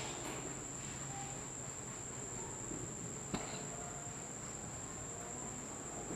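Marker writing on a whiteboard, faint short squeaks of the felt tip, over a steady high-pitched tone. A single sharp click a little past three seconds in.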